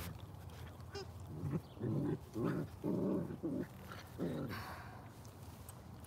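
Golden retriever puppies play-growling as they wrestle: about six short, low growls in quick succession, starting about a second and a half in.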